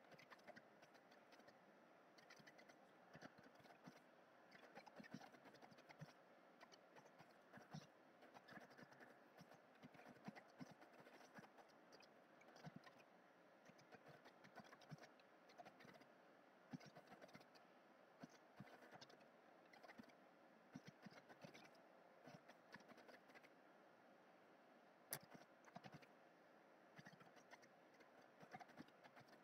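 Faint computer keyboard typing: irregular runs of key clicks.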